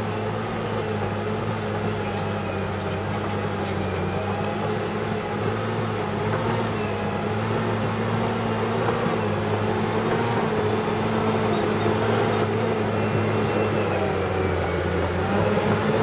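Caterpillar 963C track loader's diesel engine running steadily under load as the machine pushes a bucket of dirt, growing louder as it comes closer. Near the end the engine note dips briefly and then recovers.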